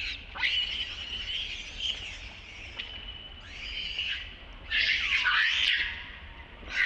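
Baby long-tailed macaque crying in continuous high-pitched squeals and screams, breaking into a louder, longer screaming outburst a little after halfway, a distress cry over being refused the breast.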